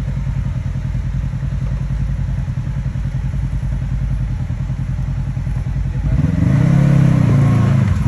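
Side-by-side UTV engine running steadily at low speed, then from about six seconds in getting louder as it revs up and down a couple of times, with some clatter.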